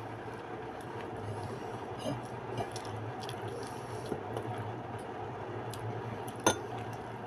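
Quiet mealtime sounds over a steady low hum: a few soft clicks of eating, and one sharp clink of a metal spoon against a ceramic bowl about six and a half seconds in.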